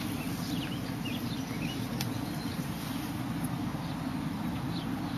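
Steady low rumbling noise with a few faint, short high chirps over it.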